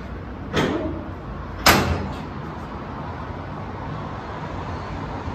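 Two sharp clacks about a second apart, the second louder, over a steady low hum.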